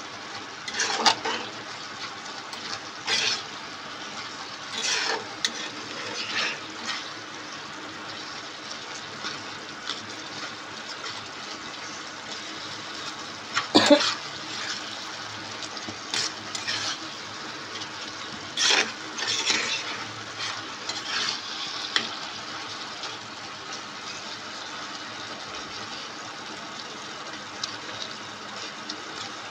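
A metal spatula stirs and scrapes a wet spinach, eggplant and potato curry in a nonstick kadai, giving a scatter of short scrapes and clinks against the pan, loudest about halfway through. A steady hiss from the simmering pan runs underneath.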